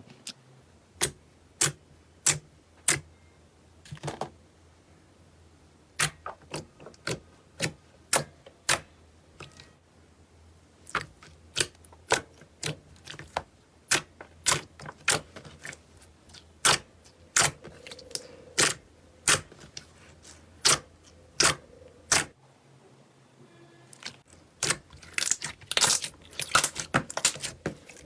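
Slime being handled and pressed, letting out sharp pops and clicks one by one, about one every half second to a second, coming thick and fast near the end.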